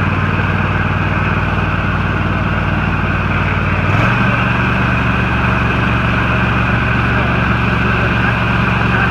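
Husqvarna riding lawn tractor engine running steadily, its pitch stepping up and getting slightly louder about four seconds in as the engine speeds up.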